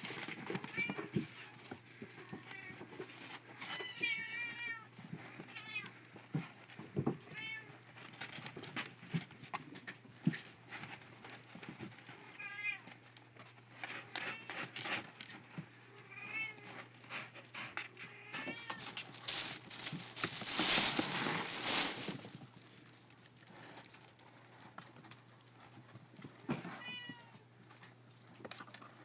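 Kitten meowing many times in short, high calls over scratching and rattling of cat litter, with a louder rustling rush lasting about two seconds near the twenty-second mark.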